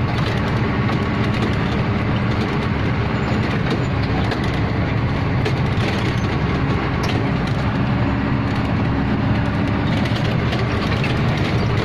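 Truck's diesel engine running steadily as it drives, heard from inside the cab, with scattered clicks and rattles of the cab and body.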